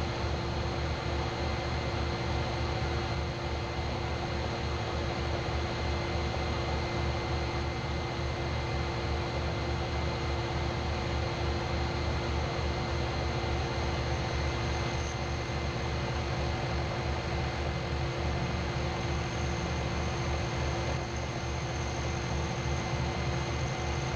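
Electric shop machine running steadily: a low motor hum with a few steady whining tones and no change in speed.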